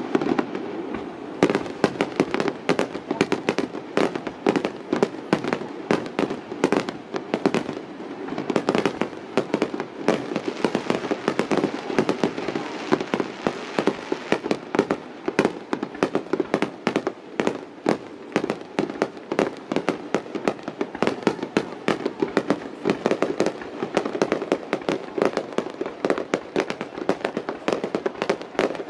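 Aerial fireworks display going off: a rapid, unbroken run of bangs and crackles, several a second.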